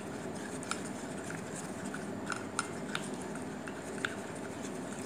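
A spoon stirring a thick turmeric-and-cream paste in a plastic bowl, making faint, irregular little clicks and scrapes.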